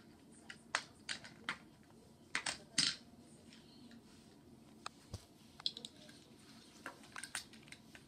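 Scattered sharp clicks and clacks of small metal die-cast toy cars being picked up and set down on a marble counter, about ten at irregular intervals.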